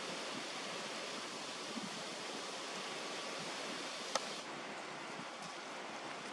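Steady outdoor background hiss, with one sharp click about four seconds in.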